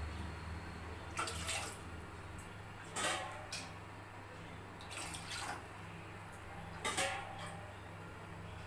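Water being poured from a small tumbler into a cooking pot, four short pours about two seconds apart.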